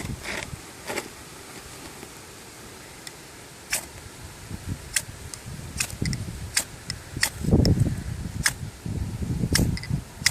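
Knife blade struck down a ferrocerium rod to throw sparks, about seven quick sharp scrapes spaced through the second half, with low knocks of handling in between.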